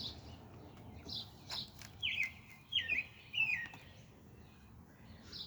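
Birds chirping: repeated short high chirps, with a phrase of three falling notes about two seconds in. A couple of light clicks sound about one and a half seconds in.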